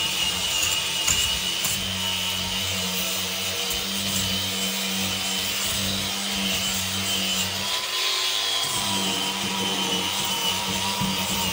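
Cordless DeWalt angle grinder with a sanding disc running against a log, grinding and scouring the wood surface steadily, with background music.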